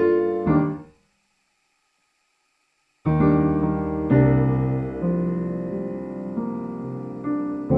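Background piano music. It cuts off into silence about a second in and starts again about three seconds in.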